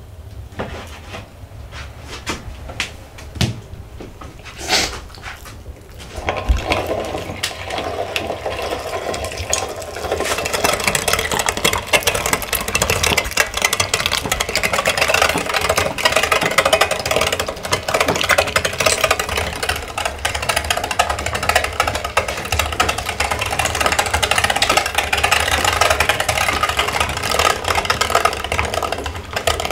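Meat grinder mincing chunks of raw pork, a steady mechanical grinding that sets in about six seconds in and runs on. A few sharp knocks sound in the first few seconds.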